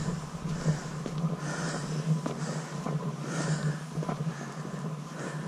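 A man breathing hard, in and out about once a second, from the effort of climbing steep stone steps, with faint footsteps on the stone.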